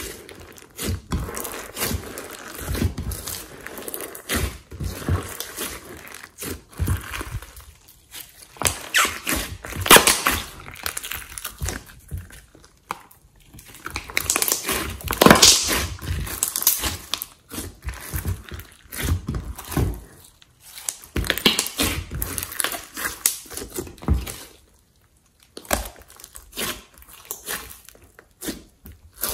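Hands squeezing, stretching and kneading a large lump of glossy slime in a glass dish: irregular squishing and sticky clicking as the slime is pressed, pulled apart and folded.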